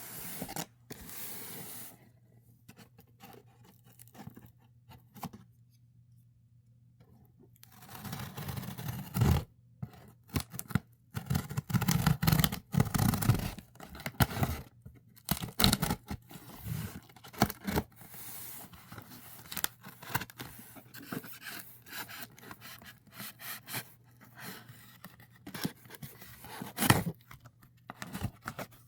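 Packaging being handled and opened: irregular scraping, rustling and tearing of cardboard and plastic, with scattered sharp clicks. It is busiest a third of the way in.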